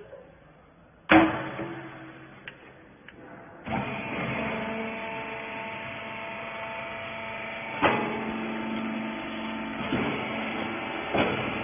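Machinery of a horizontal bagging hay baler: a loud bang with a short ring about a second in and a few light clicks, then a machine starting up about four seconds in and running with a steady multi-tone hum, with knocks about eight, ten and eleven seconds in.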